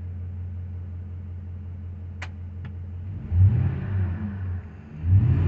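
Freshly rebuilt Ford 5.4-litre three-valve V8 running at a steady hot idle, heard from inside the cab, then revved up briefly about three seconds in and again near the end. Two small clicks come a little after two seconds.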